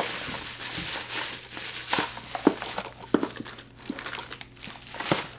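Bubble wrap crinkling and rustling as a small lure is unwrapped by hand, with a handful of short, sharp crackles along the way.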